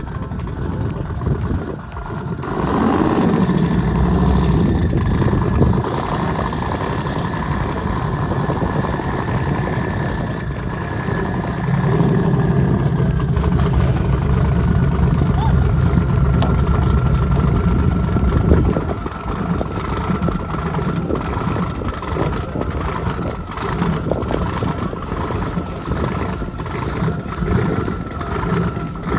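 Car engines idling and revving, swelling louder for a few seconds at a time, with a steady whine over them and voices in the background.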